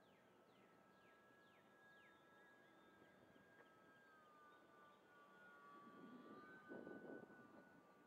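Faint, steady whine of the E-Flite UMX Waco's electric motor and propeller in flight, its pitch dipping slightly about halfway through. Wind gusts rush on the microphone near the end, louder than the motor.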